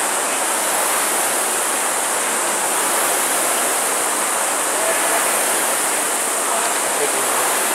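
Many Concept2 rowing ergometers running at once, their air-resistance flywheels whirring together into a steady rushing noise.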